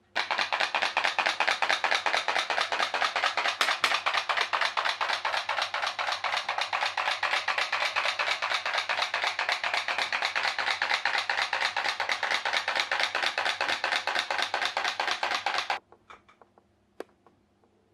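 Tea-light-heated pop-pop (putt-putt) boat running: its small steam boiler pops in a rapid, even stream, the steam pulsing in and out of its water tubes. The popping stops suddenly about 16 seconds in, leaving a few faint clicks.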